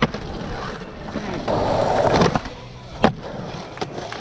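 Skateboard wheels rolling over concrete, growing louder around the middle, then one sharp clack of the board about three seconds in.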